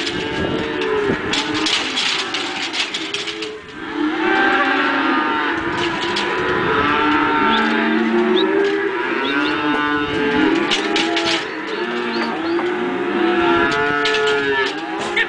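A herd of cattle mooing, many calls overlapping one another, nearly without a break from about four seconds in; a few sharp knocks come in the first seconds.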